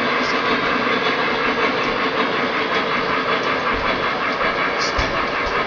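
O-gauge model freight cars rolling past on the track: a steady rumble and clatter of wheels, with a few low knocks in the last couple of seconds.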